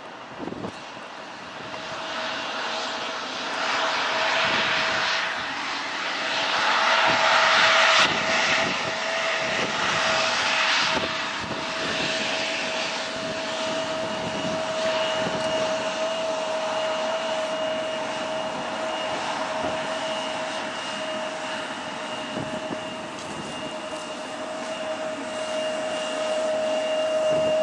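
Airbus A330-243's Rolls-Royce Trent 772 turbofans running at taxi power as the airliner rolls past: a steady whine over a rushing hiss that swells to its loudest about six to eight seconds in.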